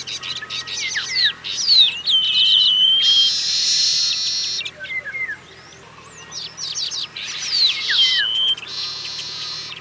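Baya weaver song: quick chirps and falling notes run into a trill, then end in a long wheezy buzz. The phrase is given twice, with a short pause between.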